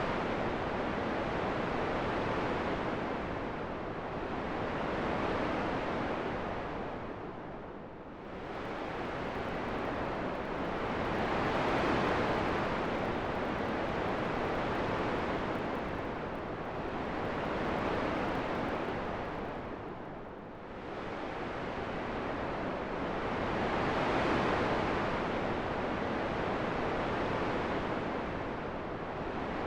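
Steady wind noise rising and falling in slow gusts every five or six seconds, with two deeper lulls.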